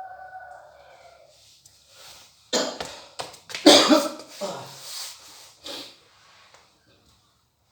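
A person coughing in a run of harsh coughs, the loudest in the middle, the chronic cough of someone suffering from shortness of breath.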